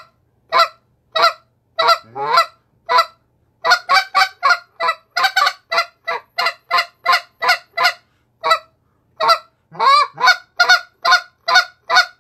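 Next Gen Mr. Big goose call blown in short, sharp spit notes. A few spaced single notes lead into fast runs. After a short pause past the middle, another fast run follows, and the notes go high-pitched as they speed up.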